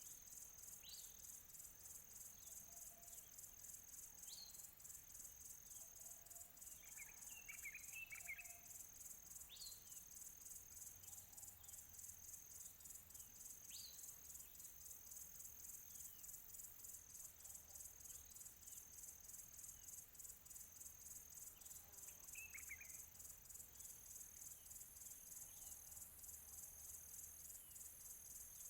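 Faint outdoor ambience: a steady, very high-pitched insect trill of rapid even pulses, with a few short, falling bird chirps every few seconds and two brief bursts of several chirps.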